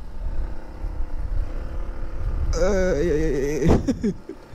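Motorcycle riding slowly over a rough, dusty road: a steady low rumble of engine and wind on the microphone. About two and a half seconds in, a person's voice sounds briefly for about a second.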